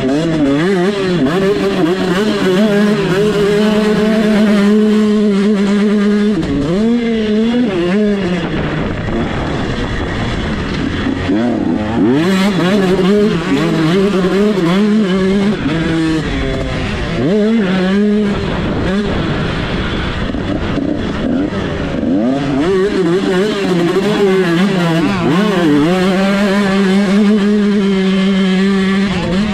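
GasGas 125cc two-stroke motocross engine run hard in a race, held at high revs for long stretches with a brief drop and climb in pitch several times, around 7, 17 and 22 seconds in. A rushing noise runs under it.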